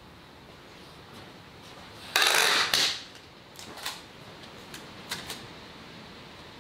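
A strip of adhesive tape pulled off the roll in one rasping rip about two seconds in. A few light ticks and paper rustles follow as it is torn and handled.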